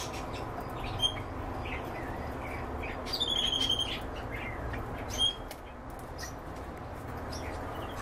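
Canaries chirping: a single sharp chirp about a second in and another just after five seconds, and a quick run of repeated high notes around three seconds in, over a steady low background hum.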